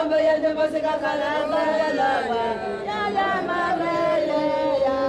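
A group of voices singing a slow, chant-like song together, with long held notes.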